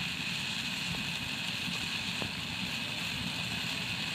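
Pot of water heating toward the boil on a stove: a steady hissing rush over a low rumble, with two faint clicks about one and two seconds in.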